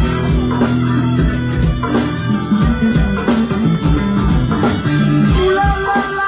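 Live go-go band playing, with a strong low bass line, drum kit and guitar; sustained pitched notes join in near the end.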